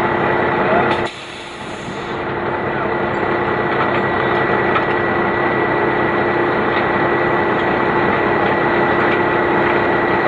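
Concrete mixer truck's diesel engine running steadily as the truck rolls on a flattened rear tandem tire. The level drops suddenly about a second in, then builds back up over the next few seconds.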